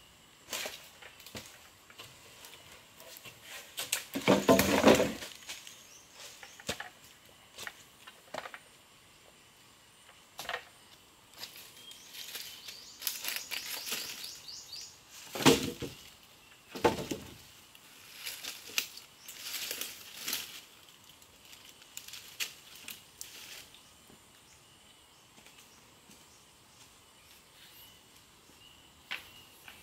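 Dry wooden branches and poles being carried and dropped onto a pile: irregular knocks and clatter of wood on wood, with rustling of twigs and leaves. The loudest clatter comes about four seconds in, with more sharp knocks around the middle.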